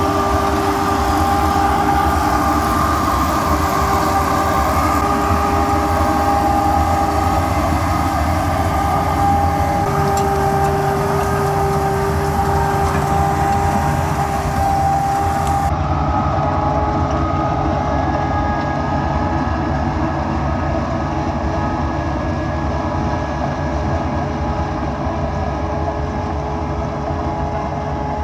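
Tractor engine and a towed Green Bull pumpkin seed harvester running steadily, a low drone with a steady whine from the harvester's drive, as its spiked wheel picks up pumpkins and the machine crushes them. The sound turns duller about halfway through.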